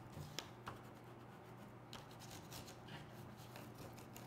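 Faint scratching of a peeled crayon rubbed on its side across a paper plate, with a few light ticks.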